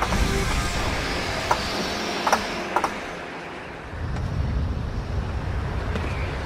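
A car's engine and body noise: a steady rumble with a few sharp mechanical clicks in the first three seconds and a brief drop in level around the middle.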